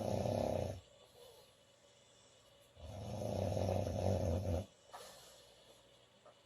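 A sleeping woman snoring: one loud snore fades out just under a second in, then a longer snore of about two seconds begins around three seconds in and stops suddenly, with quiet breathing in the gap between.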